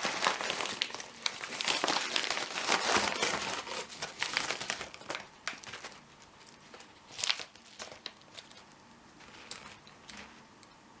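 Packaging crinkling and rustling as items are handled and unpacked, dense for about the first six seconds, then a few scattered light clicks and taps, the sharpest about seven seconds in.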